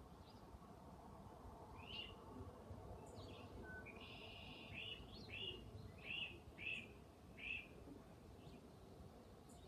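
Faint bird chirping over low background hiss: a few scattered chirps, then a run of four or five short repeated notes about halfway through.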